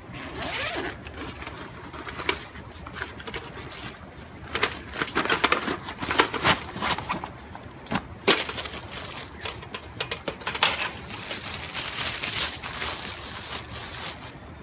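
Unpacking a boxed metal barbecue grill: rustling packaging with irregular clinks and scrapes of the metal parts being handled.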